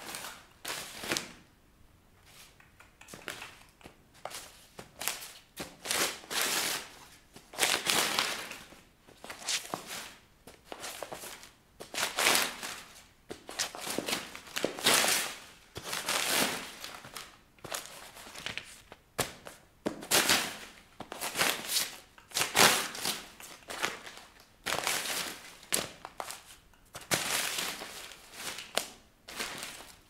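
Paper crumpling, crinkling and tearing under high heels stepping onto loose sheets and notebooks, in irregular bursts roughly once a second. Sharp clicks of the heels on a tiled floor come in among them.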